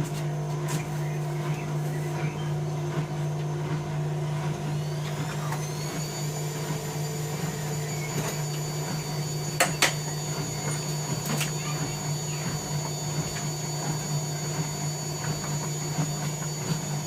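Bauknecht Dynamic WA 1460 washing machine running, with a steady motor hum. A high motor whine rises about five seconds in and then holds steady, and there are two short knocks near the middle.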